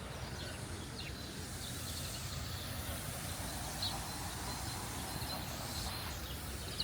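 Steady outdoor background noise, with a few short bird chirps about a second in, near four seconds and at the end.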